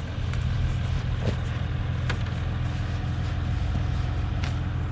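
Jeep Wrangler's 3.0-litre EcoDiesel V6 idling steadily, with a few light clicks over it.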